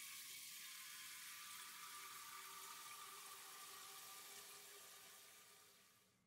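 Water from a pull-out kitchen faucet's spray head running into a stainless steel pasta pot: a steady hiss with a ringing note from the filling pot. It fades out about a second before the end.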